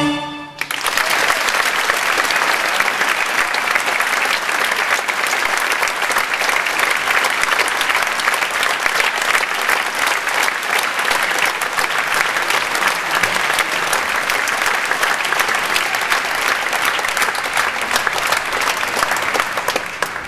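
Theatre audience applauding: a steady, dense clatter of many hand claps that starts about half a second in and fades out at the end.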